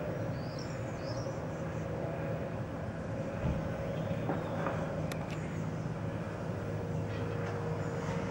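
Single-engine Cessna light aircraft's piston engine and propeller droning steadily as it passes low overhead.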